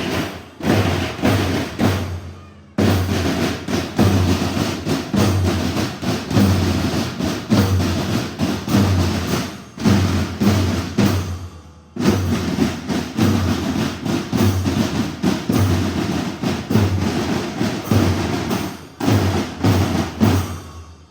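Marching band drum section playing a cadence: a bass drum beating about twice a second under many quick snare strokes, with short breaks between phrases.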